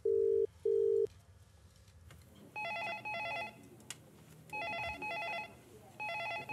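A phone line's double ringback tone heard from the caller's end: two short, steady low beeps, the loudest sound here. Then an office desk telephone rings with an electronic warbling trill, three double rings about two seconds apart.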